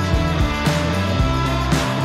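Background music: a guitar-led rock track with a steady drum beat.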